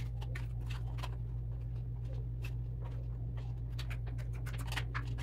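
Small irregular plastic clicks and scrapes as the threaded neck of a toothpaste tube is screwed into a plastic toothpaste dispenser, with a steady low hum underneath.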